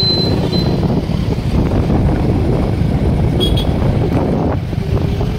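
Heavy wind rumble on the microphone mixed with road and engine noise from a moving two-wheeler, steady throughout, with a brief faint high chirp about three and a half seconds in.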